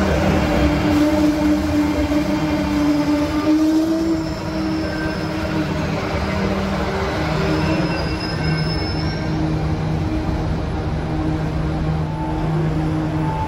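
Alstom 300 subway train moving slowly through the station, its running gear giving a steady hum whose pitch rises slightly about four seconds in. Faint, high wheel squeals come in around the middle.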